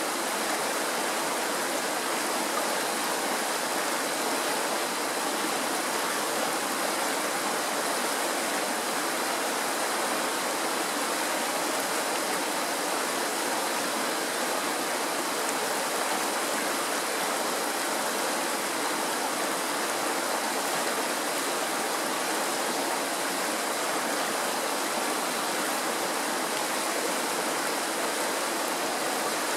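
Shallow mountain stream rushing and splashing over rocks in small rapids: a steady, even rush of water that does not change.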